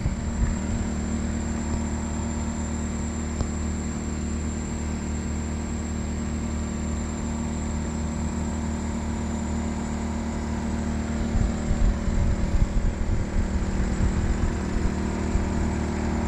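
Portable generator running steadily, a constant engine hum with a thin high whine alongside. About two-thirds of the way through, the sound turns uneven with irregular low bumps.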